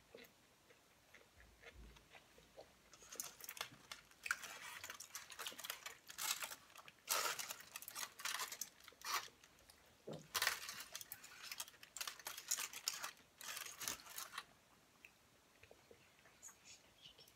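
Aluminium foil crinkling and rustling in irregular crackles as chopsticks dig a sushi roll out of a foil-lined tray, dying away to a few faint ticks near the end.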